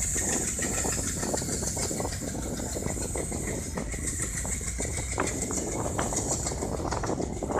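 Passenger train running, heard from an open coach door: steady rumble of wheels on rail with scattered clicks and rattles and a high hiss, behind an Alco diesel locomotive.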